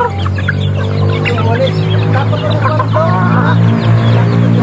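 A flock of young chickens clucking and peeping as they crowd in to be fed, many short calls overlapping, with a steady low hum underneath.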